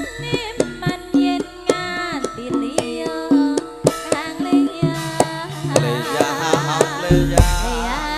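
Javanese gamelan music for a tayub dance. A singer's voice wavers in ornamented lines over kendang hand-drum strokes and the steady held notes of the metal gamelan instruments. A deep low swell comes in about seven seconds in.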